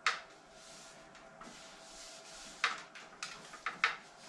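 Soft rubbing strokes about a second apart as grinding dust is wiped off an engine lathe, with a sharp knock at the start and several light metal clicks and knocks near the end.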